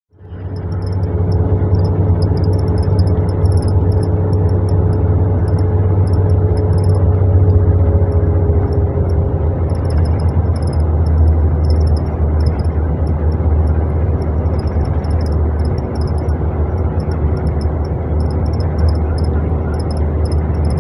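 Cabin noise inside a long-distance coach at highway speed: steady low engine and road rumble with tyre hiss and a faint steady engine hum. A faint, high-pitched chatter comes and goes over it.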